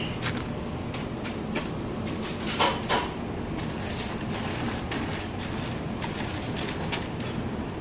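Brief crinkles and rustles of paper and plastic takeaway bags being handled and packed, over a steady background hum; the loudest pair comes about two and a half to three seconds in.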